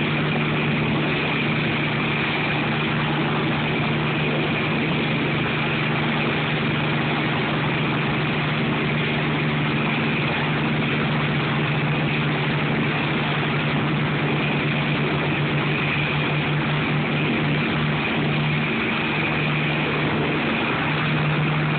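Hiller UH-12C helicopter's piston engine and rotor running steadily while it hovers just off the ground, a loud low drone with a higher whine above it. In the last third the drone starts to pulse in a chopping beat.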